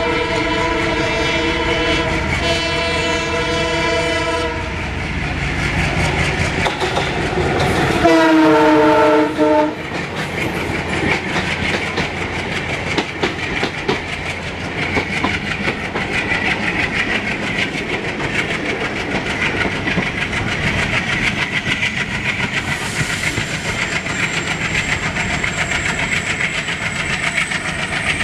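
Horn of a WDP4 diesel locomotive sounding a steady chord as it approaches on the adjacent track, then a louder blast about eight seconds in that drops in pitch as the locomotive passes. Its passenger coaches then rush past with a steady rattling clatter of wheels on rail joints.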